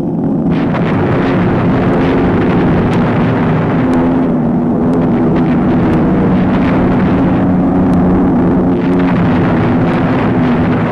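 Heavy bomber engines droning steadily, with the rumble of bomb explosions mixed in.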